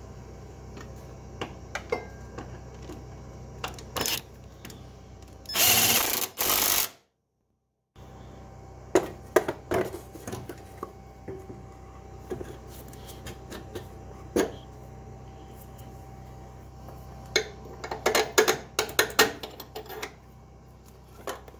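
Tools working on the engine-mount bolts of an SR20 engine swap: scattered metallic clicks and knocks over a steady low hum. About a third of the way in there is a loud noisy burst of about a second and a half, then a second of dead silence. Near the end comes a quick run of clicks.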